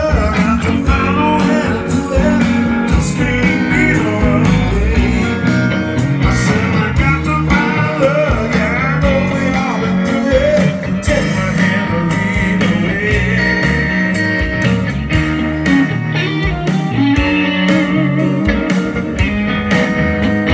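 Live blues rock band playing, with electric guitars over organ and drums.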